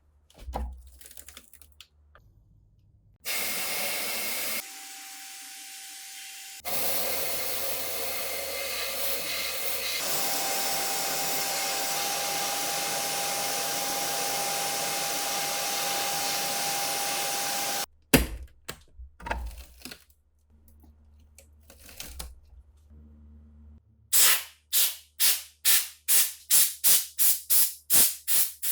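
A long, loud, steady hiss of spray or blown air with a thin steady whistle in it. It stops abruptly and gives way to scattered knocks and clicks, then to a run of regular strokes, about two to three a second, near the end.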